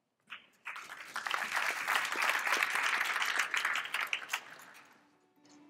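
Audience applauding, swelling over the first two seconds and dying away about five seconds in.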